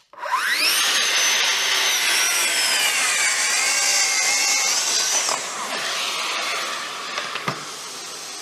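Festool plunge-cut track saw starting up with a fast-rising whine, then running along its guide rail with a high steady whine that sags briefly in pitch under load. About five seconds in the motor switches off and winds down, leaving a quieter steady hiss.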